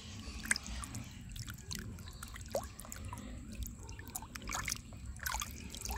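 Water sloshing and splashing as hands rub and rinse pieces of catfish in a plastic basin, with many small irregular splashes and drips.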